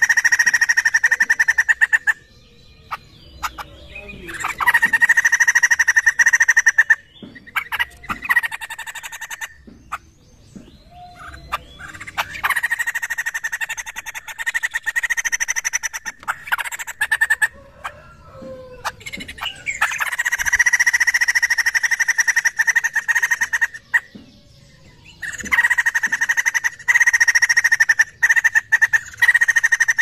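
White-crested laughingthrush (poksay jambul) calling loudly in repeated bouts of rapid, chattering laughing calls. Each bout lasts a few seconds, with short pauses between.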